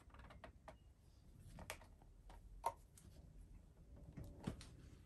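Faint handling noise of a muzzleloading rifle's metal barrel being seated in its wooden stock: a few light knocks and clicks spread over several seconds, the sharpest about two and a half seconds in.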